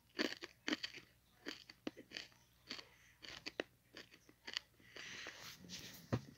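Irregular crunching and clicking, a few sharp crunches a second, with a short rustle about five seconds in and a sharper click just after.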